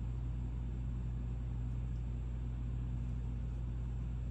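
Steady low background hum with a faint hiss, even throughout and with no distinct events.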